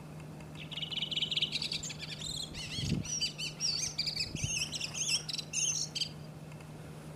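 Redwing singing. A rapid, buzzy, high trill comes just after half a second in, then a run of varied twittering and warbled notes, some sliding up and down, until the song stops about six seconds in.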